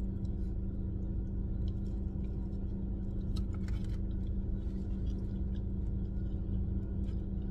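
Steady low hum of a parked car left running, with two even tones over a low rumble. A few faint mouth clicks from chewing.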